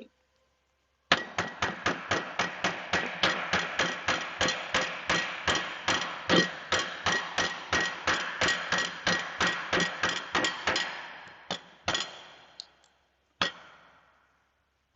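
Rapid, even hammer taps, about four a second, seating a new ball bearing into a ceiling fan motor's housing. The taps fade out near the end, followed by a few separate taps.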